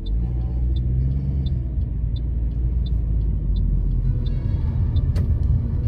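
Car engine and road rumble heard from inside a moving car, with the turn indicator ticking steadily, about three ticks every two seconds. A single sharp click comes about five seconds in.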